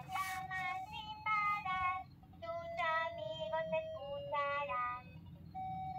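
VTech Soft Singing Animal Phone toy singing a song through its small speaker, a recorded voice singing short phrases with electronic backing, set off by turning the toy's ball. Near the end the singing stops and a plain electronic tune of held notes plays on.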